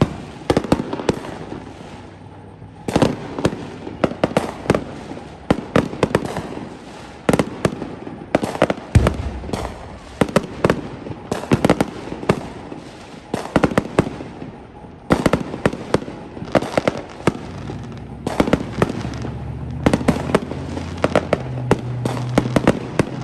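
Fireworks going off in rapid, irregular volleys of sharp bangs and crackles, with short lulls between clusters. A steady low hum comes in about nine seconds in and grows near the end.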